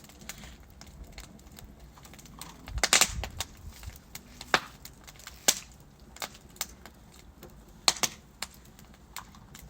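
Wood fire burning in a fireplace, crackling over a low steady hiss, with irregular sharp pops from the logs. There is a quick cluster of loud pops about three seconds in, then single loud snaps at scattered intervals.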